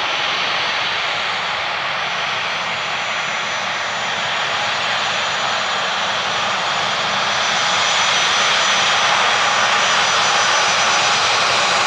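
Dassault Falcon 900 business jet's turbofan engines, a steady broad rush with a thin high whine, getting louder about eight seconds in as the jet lands.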